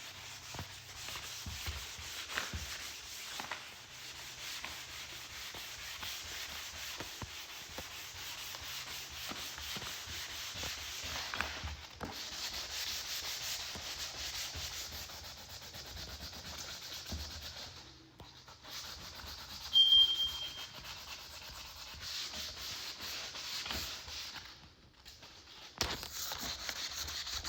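Steady abrasive rubbing on wooden kitchen cabinets as they are prepared and primed, stopping and restarting a few times. About twenty seconds in there is a brief, loud high-pitched beep.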